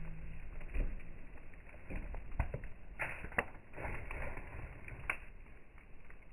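Wood fire burning, crackling with scattered sharp pops over a low hiss; the loudest pops come about three seconds in and again near five seconds.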